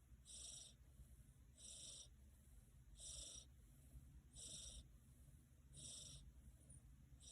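A sleeping cat snoring softly: a faint, hissy, wheezy breath repeating evenly about every second and a half, five in all.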